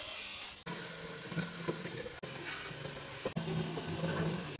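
A belt grinder's abrasive belt grinding the steel of a cleaver blade, a steady hiss over the motor's hum, as the old blade is reground in restoring it. The sound breaks off abruptly and resumes about a second in, about two seconds in and past three seconds.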